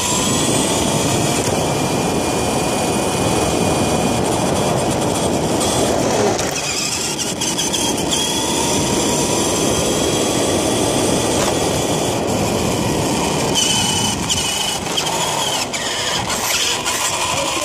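ECX electric RC car being driven: the motor's high whine rises as it speeds up, over a steady rush of tyre and drivetrain noise, climbing again twice as the car accelerates. It runs on a battery only about 20% charged.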